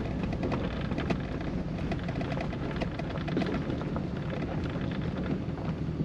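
Inside the cab of a 2000 Chevrolet Silverado pickup crawling over a rough gravel road: steady engine and tyre rumble, with frequent small clicks and rattles as the truck jolts over the gravel.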